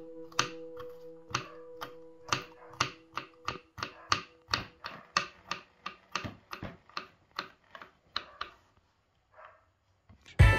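Knife chopping garlic cloves on a wooden cutting board: a quick, even run of sharp knocks, about four a second, that stops about two seconds before the end. Music comes in just before the end.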